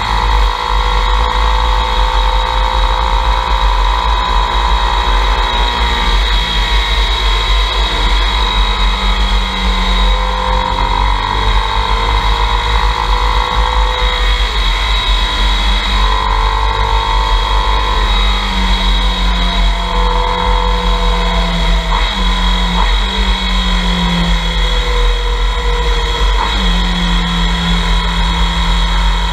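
Motorcycle engine running at road speed, heard through an onboard camera with heavy wind rumble on the microphone. The engine note rises and falls with the throttle and breaks briefly a few times in the later part.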